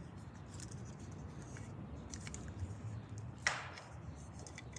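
Hands handling small plastic toy pieces and packaging: faint scattered clicks and rubbing, with one short rustle about three and a half seconds in.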